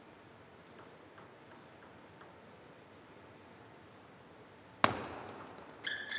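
Table tennis: a celluloid ball ticks lightly a few times, then a loud sharp racket hit rings out in the hall and a rally begins, with shoes squeaking on the court floor near the end.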